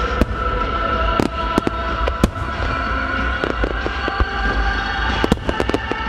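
Aerial firework shells bursting overhead: a rapid, irregular series of sharp bangs over a continuous low rumble, with music playing underneath.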